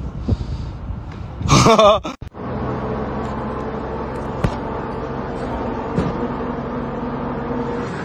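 A brief loud wavering burst about one and a half seconds in, cut off sharply. It is followed by the steady drone of a bus running, with a couple of faint knocks.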